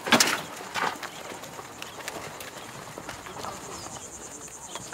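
Donkey cart setting off, with a few sharp knocks and clatters in the first second. Then a quiet rural background with birds chirping over a steady high insect hum.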